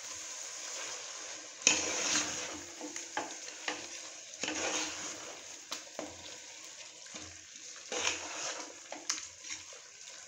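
A spoon stirring and scraping chicken masala through an aluminium pressure cooker pot, knocking against the metal now and then, with the masala sizzling on the heat underneath.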